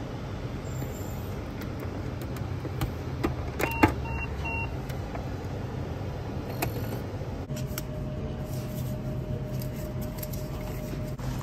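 Steady low hum of a running vehicle, with scattered light clicks. About four seconds in come a beep and then two shorter beeps, and a faint steady tone sounds for a few seconds later on.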